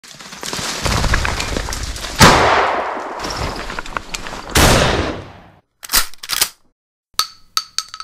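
Title-intro sound effect: a loud rushing whir with two sudden gunshot-like blasts, each fading slowly, about two and a half seconds apart. Then a handful of short, sharp metallic clicks near the end.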